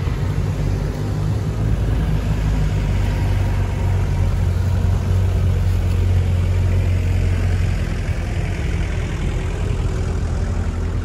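Off-road 4x4 engines running at low speed on a muddy track: a steady low drone that eases off about eight seconds in.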